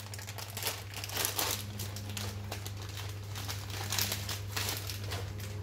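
Plastic packaging bag of a new oxygen sensor crinkling and rustling as it is handled and opened.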